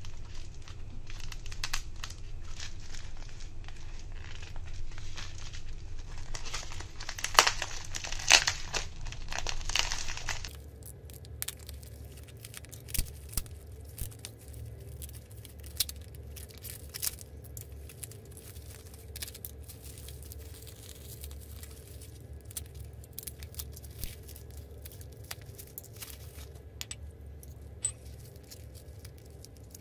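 Bubble wrap and packing tape crinkling and tearing as hands unwrap a bottle, with many sharp crackles and clicks. About ten seconds in it drops to quieter, scattered crinkles and clicks over a low steady hum.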